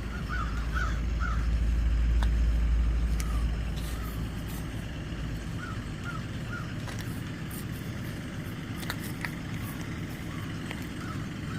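Crows cawing in short runs of three or four calls, repeated several times. Under the first half is a low rumble that swells and then fades out about five seconds in.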